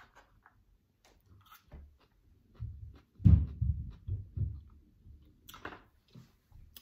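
Eating sounds: faint clicks of a plastic fork picking at chicken in a compostable tray, then a cluster of low dull thuds about three seconds in as a bite is taken and chewed.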